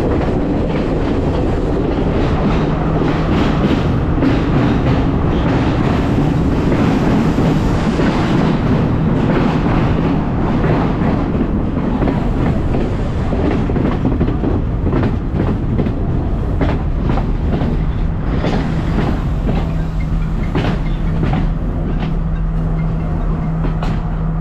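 Passenger train running along the track, its wheels clicking over the rail joints amid steady rumbling running noise, with a low hum that comes and goes.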